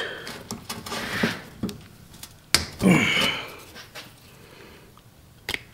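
A small hand tool clicks and scrapes against the rusted bleeder fitting of a drum brake wheel cylinder as it is worked loose, with a few sharp metal ticks; the fitting's head is stripped. A short breathy sound comes about three seconds in.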